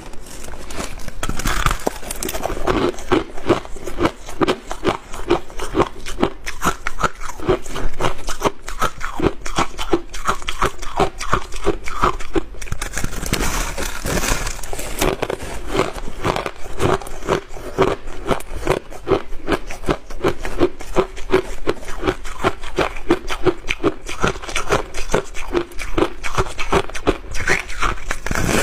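Refrozen shaved ice being bitten and chewed close to the microphone: a continuous run of rapid, hard crunches.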